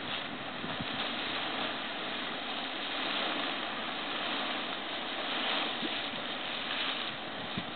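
Steamboat Geyser erupting: a steady rushing hiss of water and steam jetting from its vent, swelling a little a few times.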